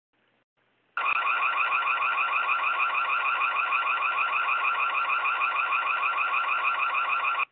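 Ring security camera's built-in siren sounding: a loud, rapidly warbling electronic alarm that starts abruptly about a second in and cuts off suddenly just before the end.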